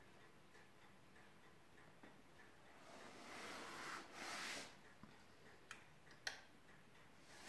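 Two sharp clicks about half a second apart: the output relay of a Sony F770ES stereo amplifier switching in a few seconds after power-on, as its power light turns from red to green. Before them there is faint ticking and two short rushes of noise.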